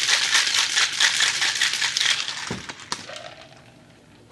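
Ice rattling hard inside a Boston shaker (mixing glass over a metal tin) as a cocktail is shaken to chill it. The shaking stops about two and a half seconds in, followed by a couple of sharp knocks.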